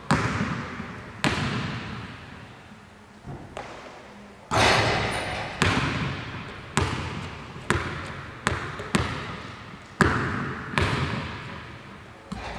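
Basketball bouncing on a hardwood gym floor, single sharp bounces at irregular gaps of about a second, each ringing out in the large hall's long echo.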